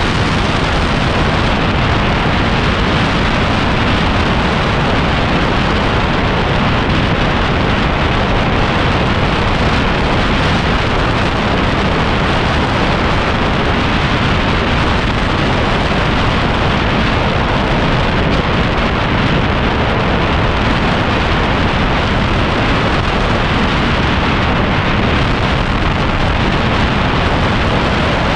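Steady roar of wind buffeting an action camera's microphone on a moving motorbike, mixed with engine and road noise, with no let-up.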